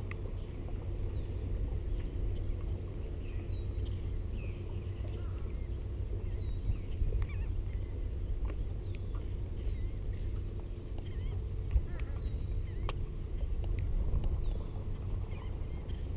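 Birds calling over and over in short, downward-sliding cries, over a steady low rumble, with a sharp click about twelve seconds in.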